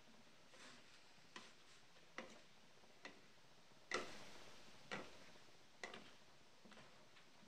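Spatula stirring cut potatoes in a frying pan, faintly. Light knocks and scrapes on the pan come about once a second, and the loudest, about four seconds in, trails off into a short scrape.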